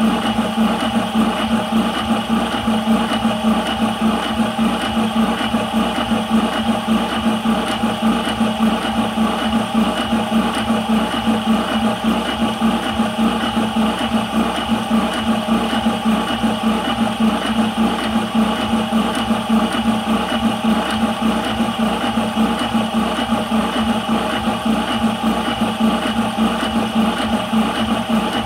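High-pressure PCP air compressor running steadily, a fast, even pulsing hum, as it pumps the airgun's 180cc air cylinder up past 150 bar.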